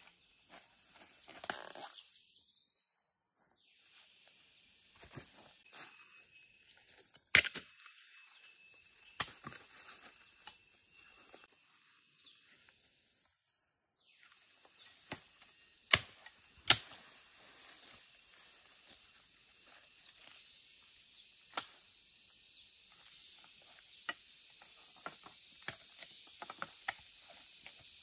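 Irregular sharp snaps and knocks over a faint steady hiss, most of them light, with three loud cracks: one about a quarter of the way in and two in quick succession just past the middle.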